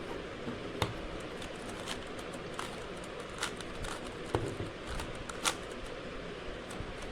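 Rubik's cube being turned by hand: irregular sharp plastic clicks as the layers snap round, over a steady hiss.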